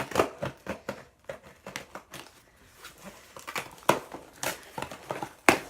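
Cardboard box and packaging being cut open and rummaged through: irregular crinkling, tearing and sharp clicks, with a louder knock near the end.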